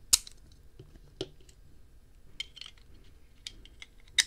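Plastic plug adapters being swapped on a small USB wall charger: a sharp plastic click just after the start, another about a second in, light scraping and ticks of handling in the middle, and a second sharp click near the end as the Australian adapter goes on over the folded prong.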